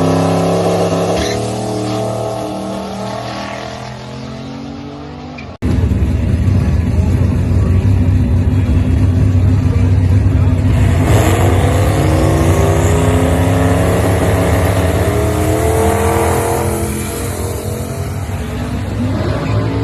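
Turbocharged 5.3-litre LS V8 engine in a Datsun 280Z, in two spliced clips. First the engine note falls steadily. After a sudden cut about five and a half seconds in, it runs louder, climbing in pitch and then falling away near the end.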